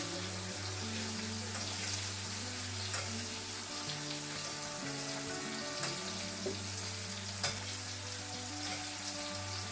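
Salmon steak sizzling steadily in a frying pan, with a few sharp pops of spattering fat, over background music with held chords.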